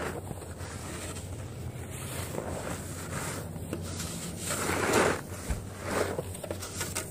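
Snow shovel pushed and scraped through deep snow in several swishing, scraping strokes, the loudest about five seconds in.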